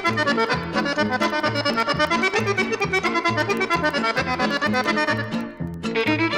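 Accordion playing a fast melodic instrumental passage over a steady bass beat. Around five and a half seconds in it briefly thins out, then a new phrase starts just before the end.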